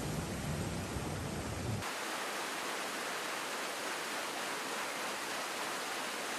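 Floodwater rushing through a street with a deep rumble. About two seconds in it cuts abruptly to a steady, even rush of flowing water without the low rumble.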